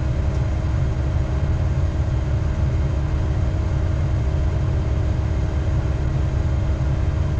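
Heavy diesel engine of logging equipment running steadily: a constant low drone with a faint steady tone above it.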